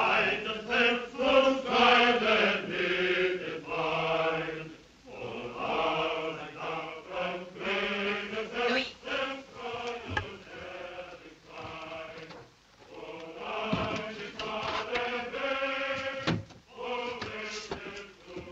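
Voices chanting in long held, slowly bending notes, with a couple of sharp knocks.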